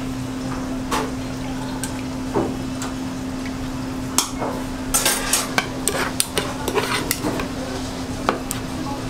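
Rolled fish cakes frying in a tray of hot oil while metal tongs clack against the fryer, turning them. The clatters come thick from about four seconds in, over a steady hum.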